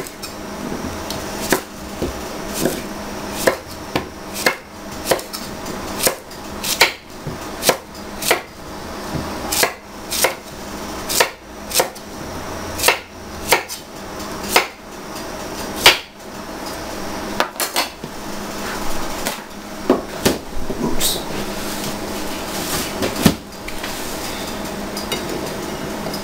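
Chef's knife chopping a zucchini on a wooden cutting board: a steady run of sharp knocks, a little more than one a second, thinning to a few scattered knocks after about 16 seconds.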